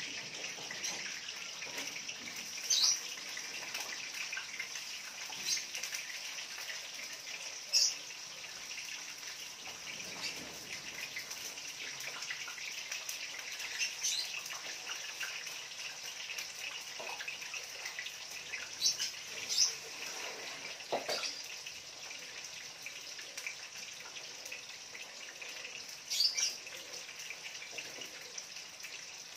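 Gas stove burner hissing steadily under a wok, with short high chirps every few seconds.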